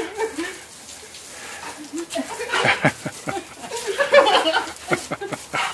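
A dog whining and yipping excitedly as it jumps and snaps at the spray from a garden hose nozzle. There are a few short pitched calls at the start, then louder splashy bursts about two and a half and four seconds in.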